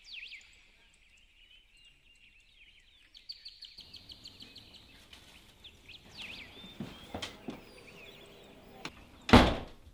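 Small birds chirping outdoors, a quick run of chirps after about three seconds, with a few faint clicks later and one loud thump near the end.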